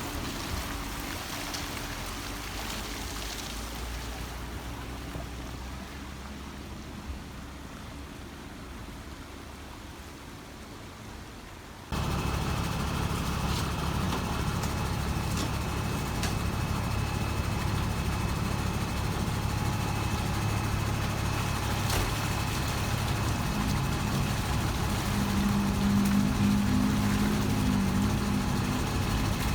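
Motor vehicle engine running steadily. It turns abruptly louder at a cut about twelve seconds in.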